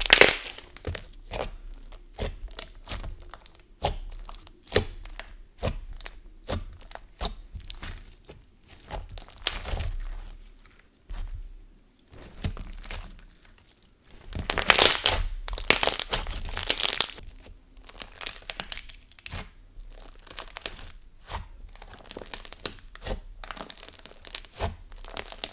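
Thick, glossy slime being stretched, folded and pressed by hand, giving quick, sharp pops and crackles as trapped air bubbles burst. The popping grows denser and louder about 15 seconds in.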